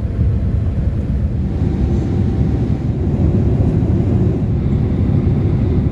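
Steady low rumble of a Boeing 787-8's Rolls-Royce Trent 1000 jet engines in flight, heard from inside the cabin.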